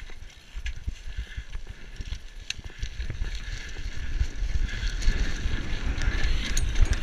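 Wind buffeting a helmet-mounted camera's microphone as a BMX bike rolls down a dirt track, with a low tyre rumble and a few sharp clicks; the noise grows louder as the bike picks up speed.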